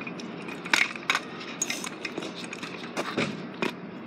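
Metal kick scooter clattering on pavement: a steady rolling rumble broken by about six sharp clicks and knocks, the loudest a little under a second in.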